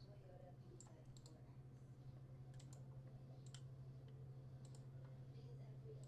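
Near silence with a steady low hum, broken by a dozen or so faint, irregular clicks from a computer mouse.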